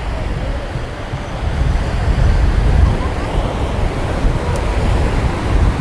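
Ocean surf washing on a sandy beach, with wind buffeting the microphone in a heavy low rumble.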